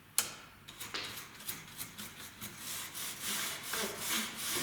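Soft bristle brush scrubbing in quick repeated strokes across a knitting machine's needle bed, sweeping out trapped lint. A sharp click comes just after the start, and the strokes grow faster and louder in the second half.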